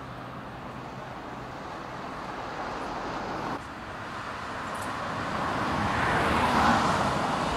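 Road traffic: a steady rush of cars passing, with one vehicle growing louder through the second half as it comes closer.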